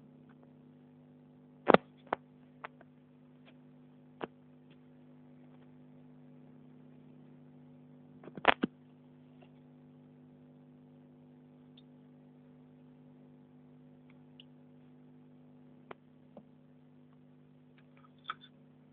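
Steady low electrical hum with a handful of sharp clicks or knocks, the two loudest about two seconds in and about eight and a half seconds in.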